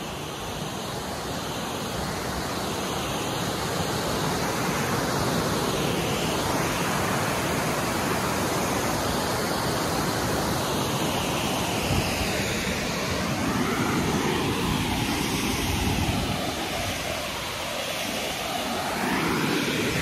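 Steady rush of water from a broad waterfall, getting louder over the first few seconds as it is approached, then holding.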